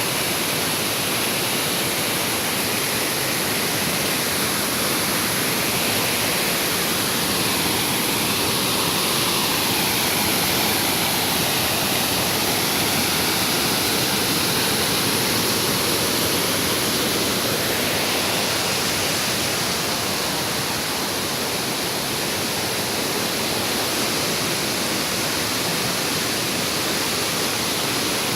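Waterfall and river rushing: a loud, steady roar of falling water with no breaks.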